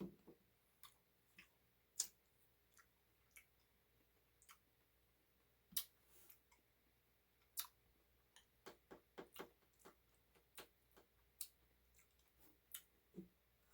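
Near silence broken by faint, irregular clicks and small taps from someone eating ice cream, coming more closely together about two-thirds of the way through.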